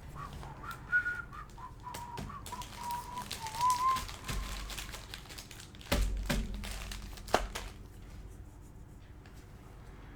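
A person whistling a few wavering, held notes, over crinkling and clicking from handling things on a table, then a thump about six seconds in.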